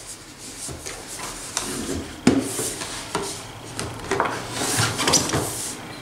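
Cardboard box being handled and turned over on a wooden tabletop: irregular rubbing and sliding of cardboard against the wood, with a sharp knock a little over two seconds in.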